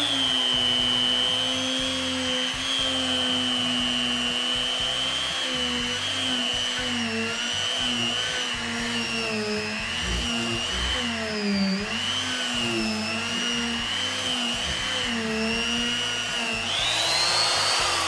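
Small Makita electric die grinder running with an eye-burning tool in it, pressed into soft white pine. Its steady whine sags and wavers in pitch as the tool bears into the wood, dipping hardest about two thirds of the way through, and climbs back up near the end as the tool comes off the wood.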